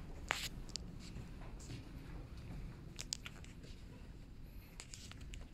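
Footsteps on carpet tiles, with scattered sharp clicks and rustles of a handheld phone being carried, over a steady low rumble.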